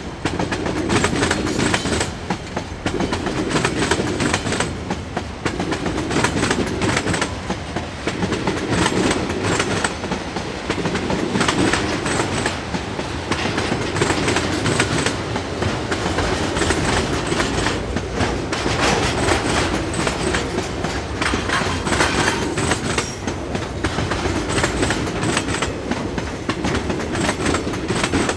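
Train rolling past on steel rails, its wheels clattering over the rail joints in a steady, repeating clickety-clack that runs on without a break.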